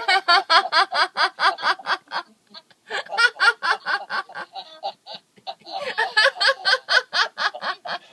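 People laughing together in a laughter-club exercise over a Skype call: rapid 'ha-ha-ha' pulses, about five a second, in three bouts with brief breaks about two and five seconds in.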